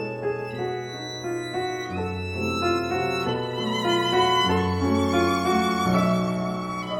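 Slow instrumental music: a melody of held notes with vibrato, in a bowed-string sound, over sustained low bass notes.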